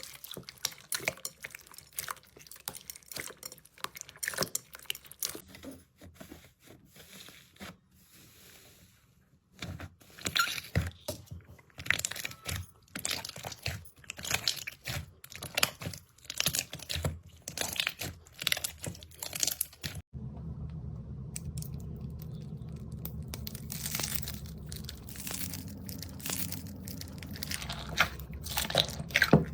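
Slime being squeezed and pressed by hand, giving a dense run of irregular crackling, popping clicks. About two-thirds of the way through the sound cuts to a new clip, where the crackling goes on over a steady low hum.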